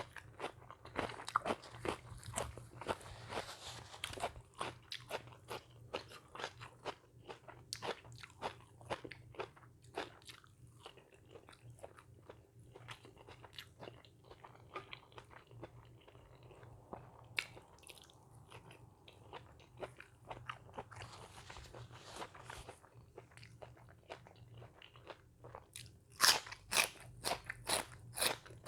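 A person eating close to the microphone, biting into crunchy food and chewing with many sharp crunches. The crunching comes in dense runs near the start and again near the end, with softer chewing in between.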